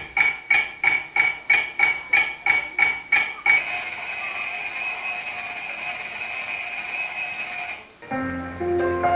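Alarm-clock sound effect in a mime's recorded soundtrack: rapid electronic beeping, about four beeps a second, that turns into a continuous ringing tone about three and a half seconds in and cuts off suddenly about a second before the end. Soft piano music follows.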